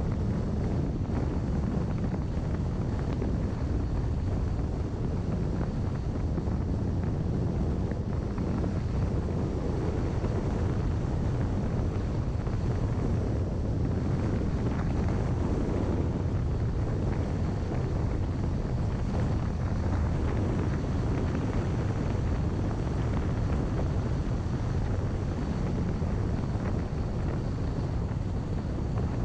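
Steady wind noise on the microphone over the running and road noise of a car driving.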